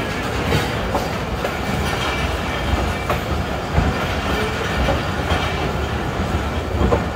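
Passenger train coaches rolling slowly, a steady rumble with occasional clicks of the wheels over rail joints, heard from an open coach door.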